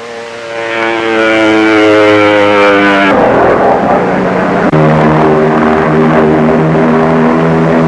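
P-47 Thunderbolt's radial engine droning in flight, its note sinking slightly. About three seconds in the sound turns rough and noisy for a second and a half, then settles into a steady, lower drone.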